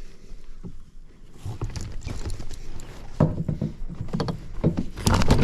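Bass flopping on a kayak's plastic deck: an irregular patter of knocks and slaps, sparse at first and quickening and growing louder over the last few seconds.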